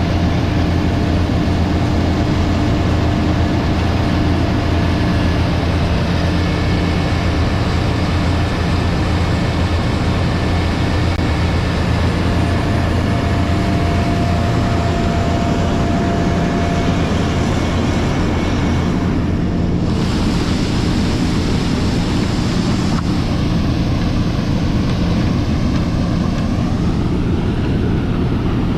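Large diesel engine of harvest machinery running steadily under load, with a constant low drone and a steady hiss above it.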